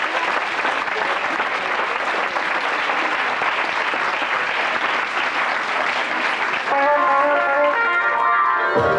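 Audience applauding. About two-thirds of the way through, music with guitar starts up.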